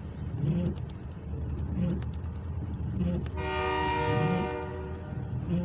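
Freight train's diesel locomotive horn sounding one chord-like blast of about a second and a half, roughly three and a half seconds in, over the steady low rumble of the locomotives.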